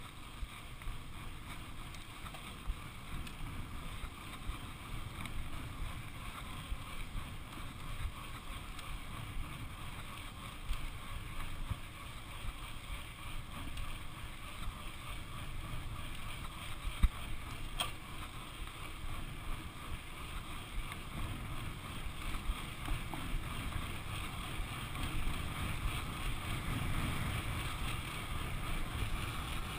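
Mountain bike rolling fast down a tarmac road: tyre rumble and wind buffeting the action camera's microphone, with small rattles and clicks from the bike. One sharp knock comes a little past halfway, and the rush grows slightly louder near the end.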